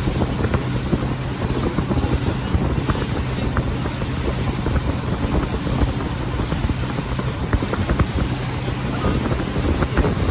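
Tour boat's motor running steadily with a low hum, under wind buffeting the microphone.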